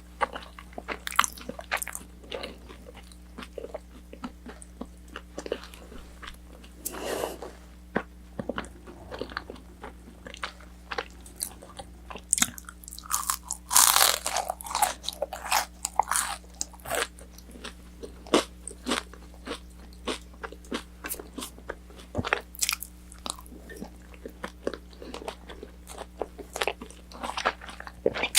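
Close-miked eating of orange chicken: bites and chewing of the fried, battered chicken, with many short sharp crunches and a longer, louder stretch of crunching about halfway through.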